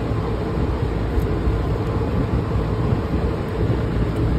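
Steady low rumbling background noise with a couple of faint ticks.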